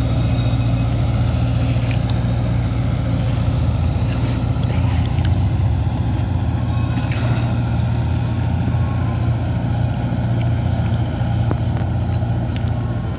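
A truck engine running steadily with a deep, even hum.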